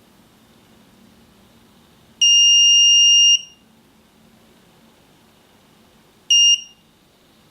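S2C radio receiver's buzzer beeping as part of its factory-reset sequence: one long, high steady beep of about a second, then a short beep about three seconds later.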